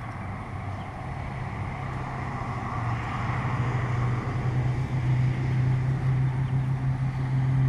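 A steady low engine hum with a rushing noise, gradually growing louder.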